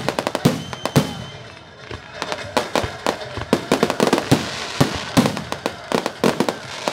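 Aerial fireworks shells bursting overhead with a few loud bangs in the first second or so, then a dense run of rapid crackling pops from crackling stars.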